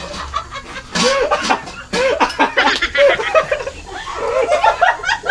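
A woman laughing in repeated bursts, mixed with excited talk.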